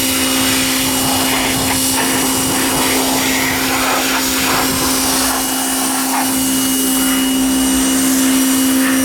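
Pressure washer running steadily: a constant motor hum with the hiss of the spray changing as it plays over the truck.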